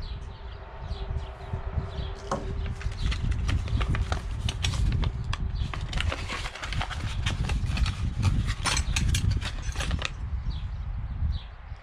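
Paper envelope and sanding sheets rustling and crinkling as they are handled, with a dense run of crackles through the middle, over a steady low rumble.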